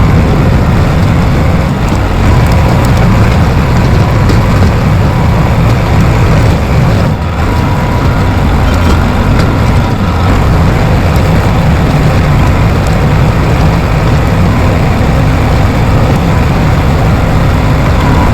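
Bulldozer's diesel engine running steadily and loud, a dense low rumble with no pauses.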